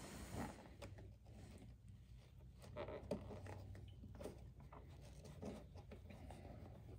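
Faint handling sounds of a motorcycle tank bag's front hook being fitted onto its strap loop: light rubbing and scattered small clicks, over a low steady hum.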